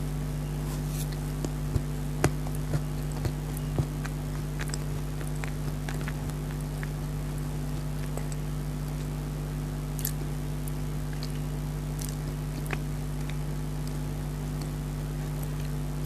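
Close-up eating sounds of chocolate dry fruit cake being chewed: scattered sharp mouth and chewing clicks, loudest in a quick run of about five between two and four seconds in. A steady low electrical hum runs underneath.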